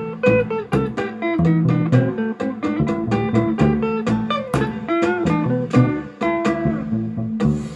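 Baby bass (electric upright bass) playing a bass line over a recorded backing track with guitar and sharp, regular percussion strokes.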